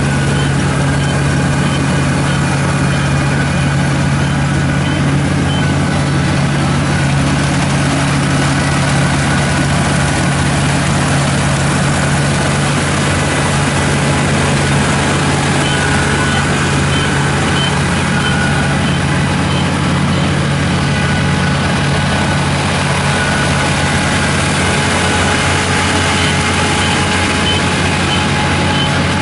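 Kubota ER447 combine harvester's diesel engine running steadily under constant load while harvesting wheat. Faint short high chirps sound in the first few seconds and again in the second half.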